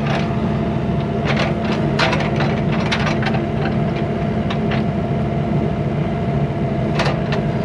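Skid steer engine running steadily under load while its bucket pushes through brush and old stumps, with wood cracking and snapping again and again, most thickly in the first few seconds and once more loudly near the end.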